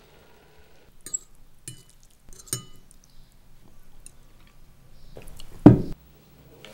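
Tableware clinking three times, light glassy knocks with a short ring, then a heavy thud near the end, the loudest sound.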